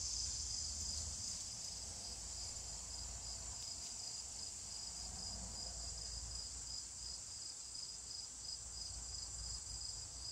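Outdoor insect chorus: a steady high-pitched buzz with a chirp pulsing about twice a second, cricket-like.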